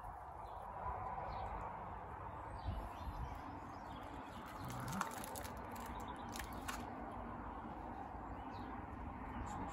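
Faint birdsong, with a few small clicks and rustles as bedding plants are pulled from plastic trays and pressed into compost.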